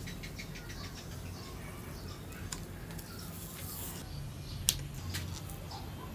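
Bicycle handlebar tape being handled: light rustling and small ticks as the tape end is stretched and pressed down, with one sharp scissor snip about four and a half seconds in.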